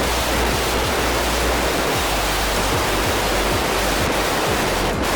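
Steady, loud hiss-like rushing noise over background music.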